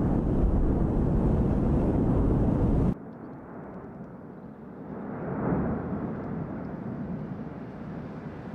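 Heavy wind buffeting the microphone, which cuts off abruptly about three seconds in. It is followed by a quieter low rumble that swells and fades.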